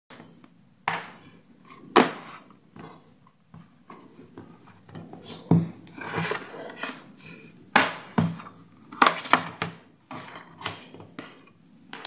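A tablet's plastic back cover and frame being handled and pried at with a plastic opening pick: irregular sharp clicks and knocks with scraping in between.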